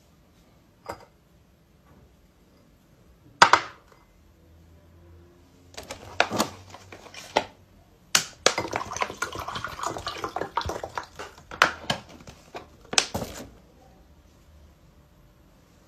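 A sharp knock on a table, then a bottle being handled and liquid poured from it into a drinking glass for a few seconds, with further knocks and clicks of glass and bottle.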